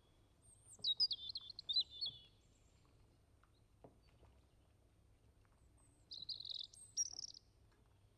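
A small bird singing: two short phrases of high, quickly changing chirps, one about a second in and another about six seconds in.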